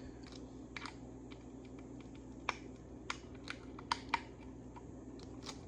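Scattered light clicks and taps as small parts are handled on a helmet visor, with an Allen key turning an aluminum tear-off spud, over a faint steady hum.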